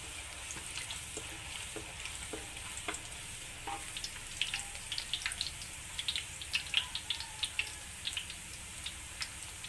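Sliced red chillies frying in hot oil in a wok: a steady sizzle with frequent small crackles and pops.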